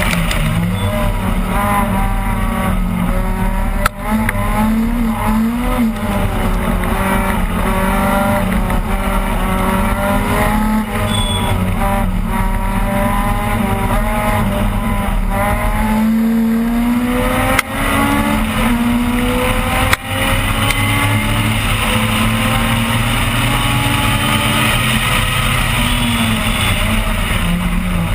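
Opel Kadett rally car engine at hard load inside the car, its revs repeatedly climbing and falling. Three quick breaks in the sound, each a sharp click followed by a brief drop in level, come about a seventh of the way in and twice close together near two-thirds through.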